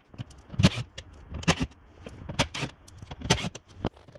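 Cordless power driver with a T25 Torx bit running in short bursts, backing out the screws that hold a car door's inner panel, with brief rattles from the tool and screws in between.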